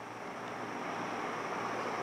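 Steady background hiss of room noise with a faint high-pitched whine, growing slightly louder; no distinct events.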